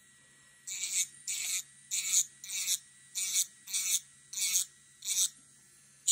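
Electric nail file shaping a sculpted acrylic nail: a faint steady motor whine under short rasping passes of the bit against the acrylic, about two a second, starting under a second in. This is the shape-refining stage after the form comes off.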